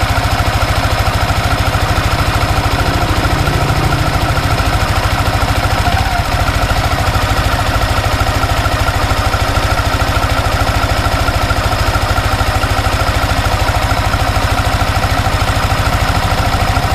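Yamaha Exciter 155 VVA's single-cylinder 155 cc engine idling steadily at a standstill, picked up by a microphone placed close to the engine.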